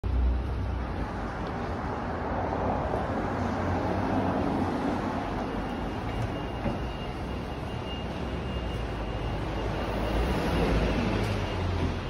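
Steady urban background noise with a low rumble, and a faint steady high whine that comes in about halfway through.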